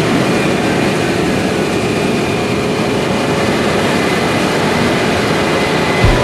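Heavy harvest machinery running steadily: a diesel engine's low running sound under a dense, even rush of noise, with a faint high whine. Music with a thumping bass comes in right at the end.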